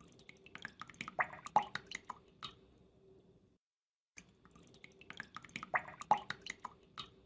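Faint small splashes and drips of water as a duckling paddles in a shallow basin: scattered light taps, in two similar runs with a brief silent gap between them.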